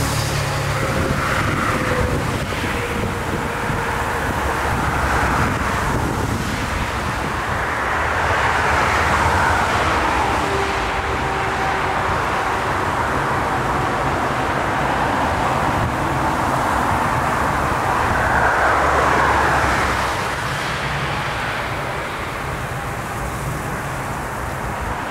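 Twin-engine jet airliner on final approach: steady jet engine noise with a few faint whining tones, under gusty storm wind buffeting the microphone.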